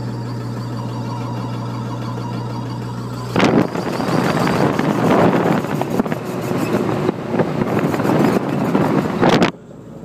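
Car cabin drone while driving, then about three seconds in a loud, harsh, rapid rattling and clicking from the front left suspension that lasts about six seconds and stops abruptly near the end. It comes on when turning right, and the owner suspects a bad wheel bearing or hub.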